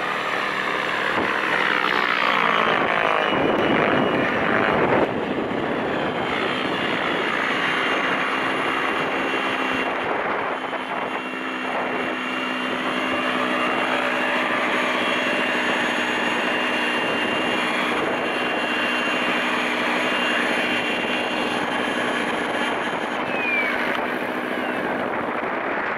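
Radio-controlled model helicopter's rotors and motor running in flight, a steady high drone whose pitch bends up and down as it passes close by in the first few seconds.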